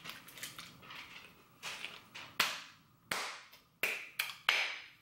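Hard candy cracking and crunching between the teeth: a run of separate sharp crunches, coming closer together in the second half.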